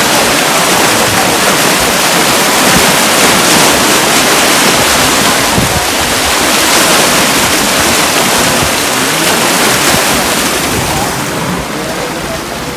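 Water rushing through a steel canal sluice gate and churning white in the channel below it: a steady, loud roar that eases a little near the end.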